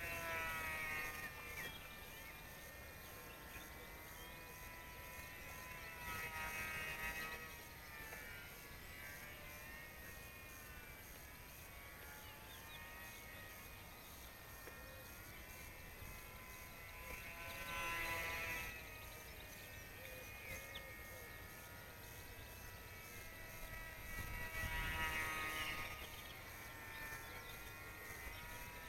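Radio-controlled model aeroplane's motor and propeller whining overhead, the pitch sweeping up and down as it flies about, loudest on four close passes.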